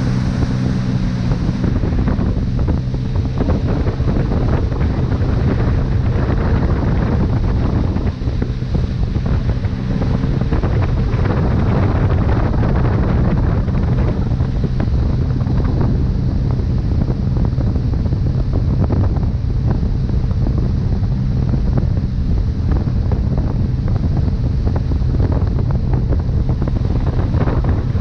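Steady engine hum of a watercraft towing a water skier at speed, under the rush of churning wake water and heavy wind buffeting on the microphone.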